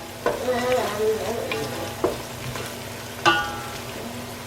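Chopped onions sizzling in hot oil in a pot as they are stirred, sautéed toward golden brown. A stirring utensil knocks against the pot three times, each knock ringing briefly.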